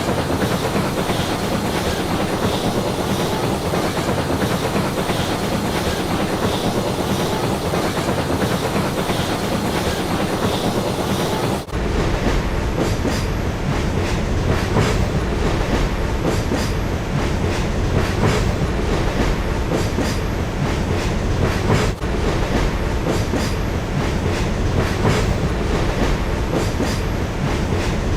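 Railway train running along the track: a steady rolling rumble. About twelve seconds in the sound switches abruptly to a heavier, deeper rumble with repeated wheel clicks over rail joints, with another brief break later on.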